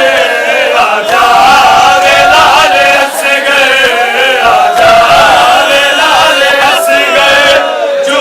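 A group of male mourners chanting a Punjabi noha, a Muharram lament, loudly and without a break.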